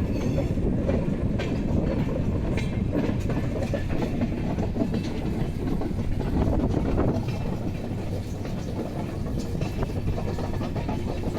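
Train running: a steady low rumble with faint clicking and rattling, easing slightly a little past halfway.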